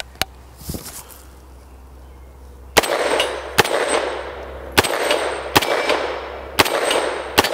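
POF-5 9mm pistol, an MP5-pattern clone, fired semi-automatically: six sharp shots at about one a second, starting about three seconds in, each followed by a trailing echo. A few faint clicks come before the first shot.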